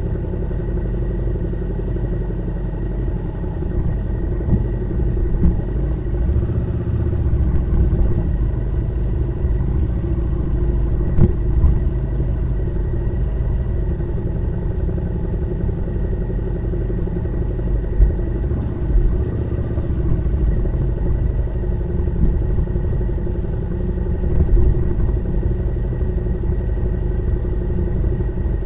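Motorcycle engine running at a steady speed while riding, with heavy low road and wind rumble and no change in engine pitch.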